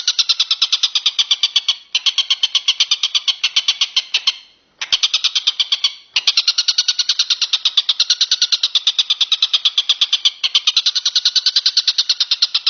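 A recorded bird call, a fast, even train of high chirps at about ten a second. It breaks off briefly a few times, about two, four and a half and six seconds in, then runs on.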